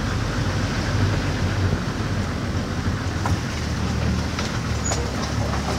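Steady low rumble of a safari vehicle's engine running, with noisy haze over it and a few faint clicks in the second half.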